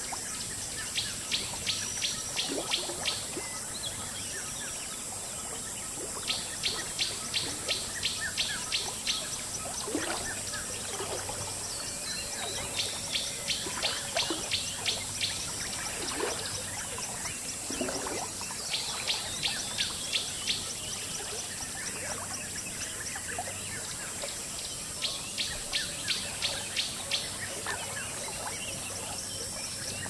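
Jungle river ambience: a steady high insect hiss over flowing water, with scattered falling bird calls. A rapid chirping trill of several pulses a second comes in runs of about two seconds, every five seconds or so.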